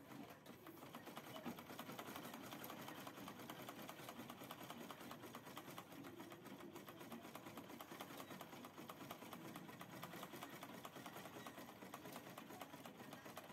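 Vintage manual sewing machine stitching a seam through cotton fabric: a fast, even clatter of the needle and stitch mechanism that picks up speed in the first second or so, then runs steadily.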